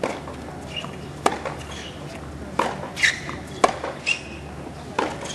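Tennis rally on a hard court: a series of sharp pops from the ball being struck by rackets and bouncing, about one a second.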